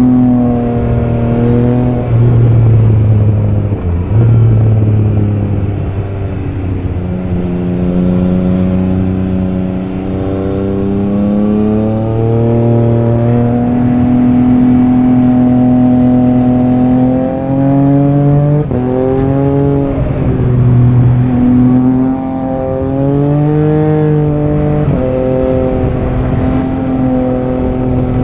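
Triumph Trident 660's three-cylinder engine running loud, its note holding steady for stretches, climbing, and dropping suddenly several times, with a quick run of rises and falls about two-thirds of the way through.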